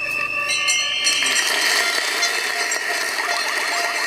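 Crowd noise at the end of a speech: applause mixed with rattling hand-held noisemakers. It opens with a steady high tone, swells into a loud clattering din about a second in, and a fast repeating chirp joins near the end.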